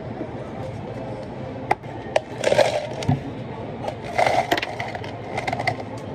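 Ice cubes scooped and dropped into plastic cups, clattering in three short bursts, with a few sharp clicks of ice and scoop against the cups before them.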